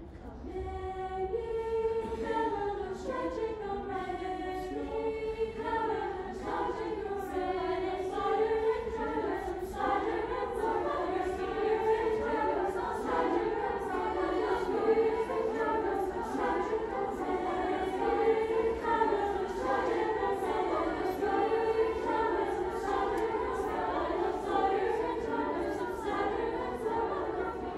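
High-school women's treble choir singing in several parts.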